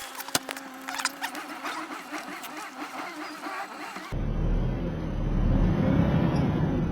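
Jeep Comanche pickup's engine running as the truck is driven; the low engine rumble comes in suddenly about four seconds in, after a quieter stretch of sharp clicks and a faint steady hum.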